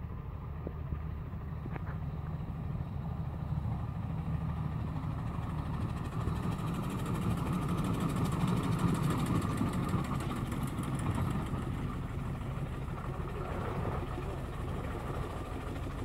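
A steam engine passing: a steady rumble that builds to its loudest about halfway through and then fades.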